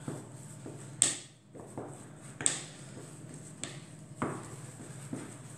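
A spoon knocking and scraping against a ceramic dish as warm choux dough is spread out to cool, with a handful of sharp knocks at irregular intervals.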